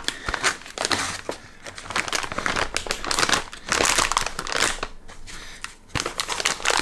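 Metallised anti-static bag crinkling and crackling irregularly as it is handled and packed away, with a single knock near the end.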